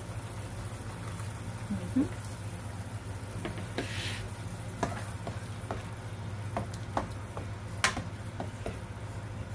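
Water boiling in a frying pan with broccoli florets being stirred by a slotted plastic spatula, which clicks and knocks against the pan every second or so, loudest about eight seconds in. A steady low hum runs underneath.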